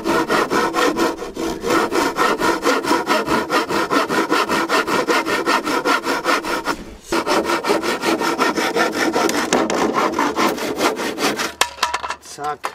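Rusty hand tree saw cutting through a spruce tongue-and-groove profile board in quick, even strokes. There is a short pause about seven seconds in, and the sawing stops near the end.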